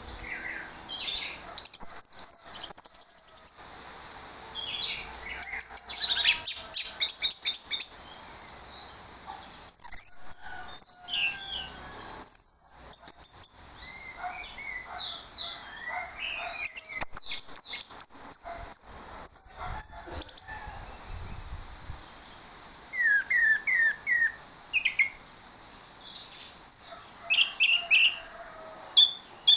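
Orange-headed thrush (anis merah) singing loudly in varied bursts of rapid chattering and whistled notes, pouring out its repertoire of mimicked calls, with a run of four short falling notes about three-quarters of the way through. A steady high hiss sits under the song for the first half.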